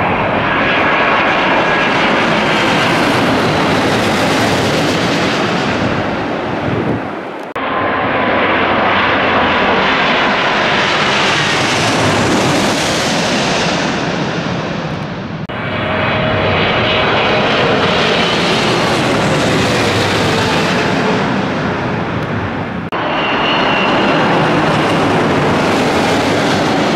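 Wide-body twin-jet airliners on final approach passing low overhead, one after another: loud jet engine noise with a high whining fan tone. The sound breaks into four separate passes, each cutting off abruptly.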